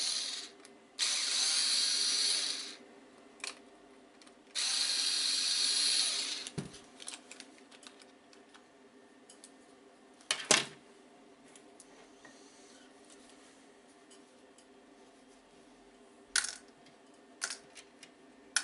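Electric screwdriver running in two bursts of about a second and a half each, undoing the case screws of an Amiga tank mouse. A sharp clink about ten seconds in and a few small clicks and taps follow.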